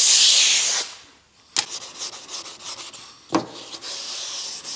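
A compressed-air blow gun hisses loudly for about the first second, blowing loose, flaking paint and dust off a car door. After a short pause comes hand-sanding of the painted door panel with sandpaper, a scratchy back-and-forth rubbing, with a short knock about three and a half seconds in.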